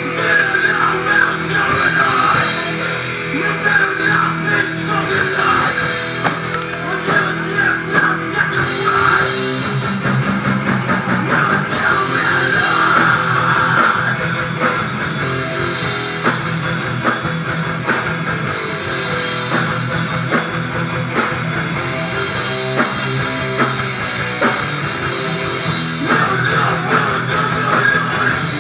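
A heavy rock band playing live and loud, electric guitars over a pounding drum kit.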